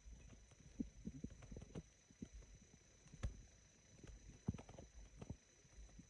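Faint human stomach gurgles: scattered short pops and bubbling blips at irregular intervals, the loudest about four and a half seconds in.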